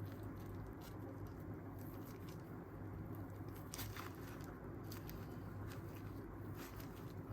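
Creaky chair giving small, irregular clicks and creaks, roughly one a second, over a steady low hum.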